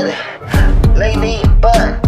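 Hip hop beat with no lyrics; a deep bass and drums come in about half a second in, under a repeating melodic line.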